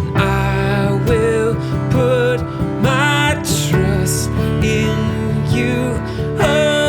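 Worship band music: a slow, gentle song with guitar and sustained accompaniment under a melody line that moves from note to note.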